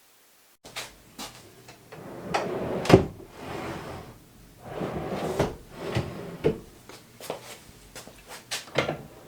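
A series of knocks and clicks with short sliding scrapes, like something being slid open and shut by hand; the loudest knock comes about three seconds in.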